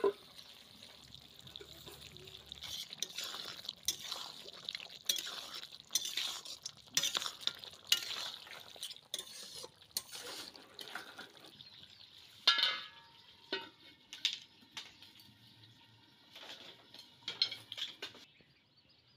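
Metal spatula stirring and scraping through thick mutton curry in a steel kadai, with many short clinks and scrapes against the pan. A louder metal clang rings briefly about twelve seconds in.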